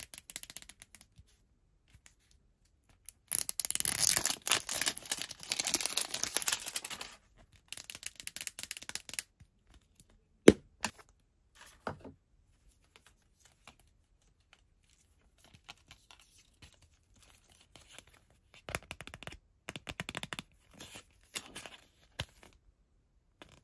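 Close-up ASMR unboxing of a Squishmallows mystery capsule: the printed wrapper band is torn off in a dense ripping for about four seconds, followed by scattered crinkles. About ten seconds in there is a single sharp snap as the plastic capsule is popped open, then softer crinkling as the plush and its hang tag are handled.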